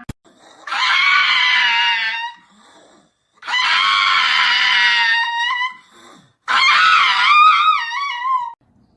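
A cat yowling: three long, loud calls of about two seconds each, the last one wavering up and down in pitch.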